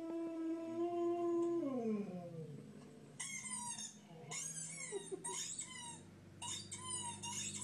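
A dog howling: one long, steady note that slides down and fades about two seconds in. After a short pause comes a run of short, high-pitched, falling squeaks.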